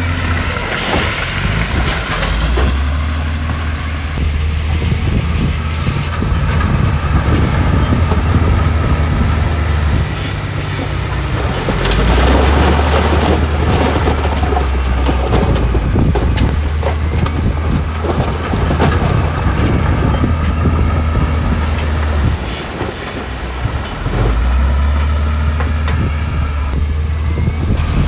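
Heavy diesel earthmoving machinery, a wheel loader and dump trucks, working. The engine note steps up and down several times, with two noisy spells of knocking and grinding, near the start and about halfway through, as stone is pushed.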